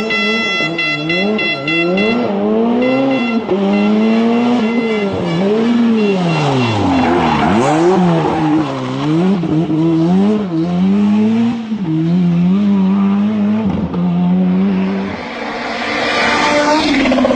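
Rally car engine driven hard, its revs climbing and dropping again and again through gear changes and lifts. A steady high whine sits over it for the first two seconds, and a burst of hiss comes near the end.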